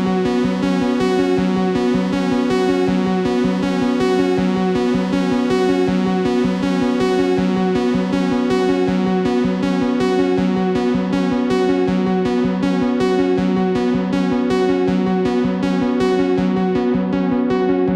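Elektron Model:Cycles groovebox playing ambient electronic music: a sustained, electric-piano-like synth chord with a fast, steady pulse. The highs are filtered down near the end, so the sound turns duller.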